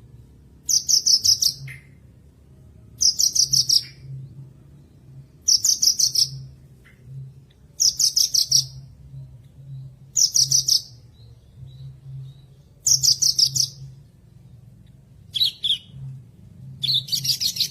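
Javan bush lark (branjangan) singing: short bursts of rapid, high chirping notes, each under a second, repeated about every two and a half seconds.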